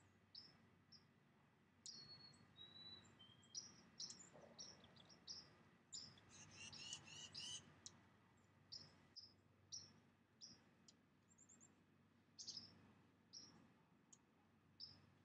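Faint birdsong: many short, high chirps repeated throughout, with a busier stretch of twittering about six to seven seconds in, over a faint low background hum.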